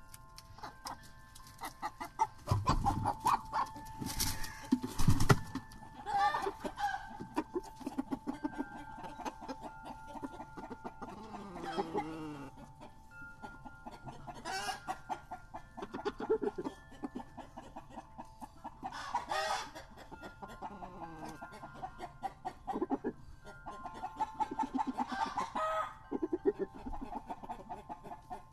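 Barred Rock roosters clucking and calling, some calls falling in pitch, over the steady ringing of a wind chime. The loudest moments are a few short, harsh bursts about four to five seconds in.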